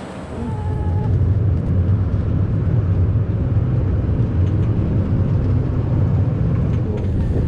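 Roller coaster train running on its track, heard from a seat on board: a steady low rumble that builds up within the first second and then holds.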